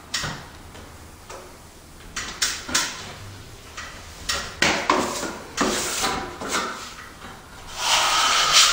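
Drywall trowel scraping joint compound off a hawk and spreading it over a butt joint: a series of short scraping strokes, with a longer, louder swipe near the end.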